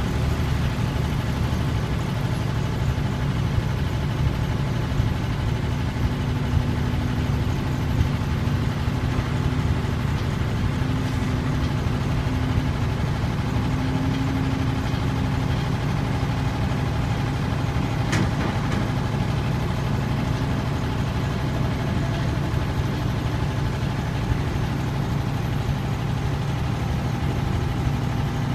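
Diesel engines of a crawler excavator and heavy trucks running steadily with a deep rumble, and a single sharp click about eighteen seconds in.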